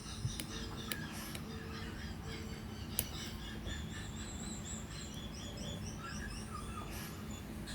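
Faint bird chirping in the background, with a few light clicks near the start and at about three seconds.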